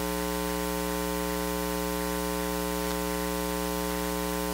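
Steady electrical mains hum with a buzzy stack of tones and a constant hiss, coming from the audio feed rather than the room.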